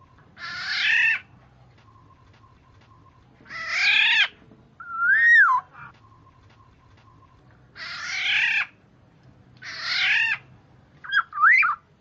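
Kepodang (black-naped oriole) calling: four harsh, rasping calls of under a second each, about three seconds apart. A short fluty whistle follows the second, and a quick pair of whistled notes follows the fourth, near the end.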